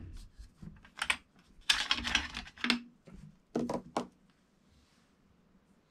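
Metal-on-metal clicks and knocks of the bolt being worked and drawn out of a Uintah bolt-action 224 Valkyrie AR upper receiver, and of it being laid down on the bench. The clicks come in small irregular clusters and stop about four seconds in.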